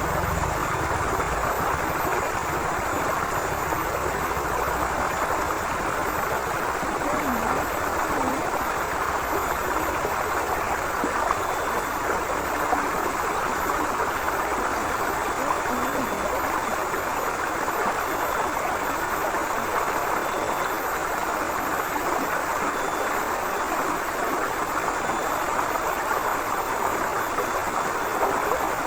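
River water flowing over rocks in a steady, continuous rush, with no change in strength.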